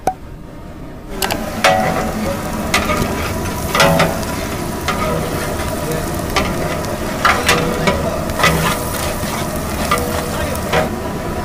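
Sliced onions frying in hot oil in a large aluminium pot, sizzling steadily. A long-handled metal ladle stirs them, scraping and knocking against the pot about once a second. The sizzling picks up about a second in.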